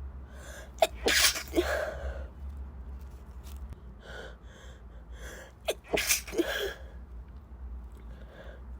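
A woman sneezing twice, about five seconds apart; each sneeze opens with a sharp catch, then a loud burst and a trailing breath, with a quieter intake of breath before the second.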